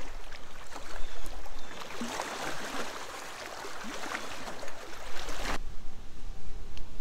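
Mylar emergency sleeping bag crinkling and crackling as it is handled, a dense rustle of small crackles that stops abruptly about five and a half seconds in.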